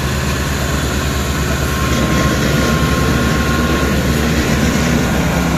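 Ford 3610 tractor's three-cylinder diesel engine working under heavy load as it pulls a fully loaded sugarcane trolley, with a steady low firing pulse. It grows a little louder about two seconds in.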